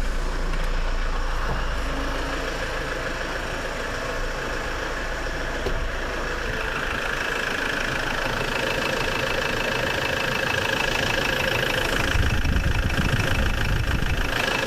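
Kia Sorento's 2.5-litre D4CB four-cylinder turbodiesel idling steadily, freshly fitted with new timing chains and hydraulic lash adjusters and running well.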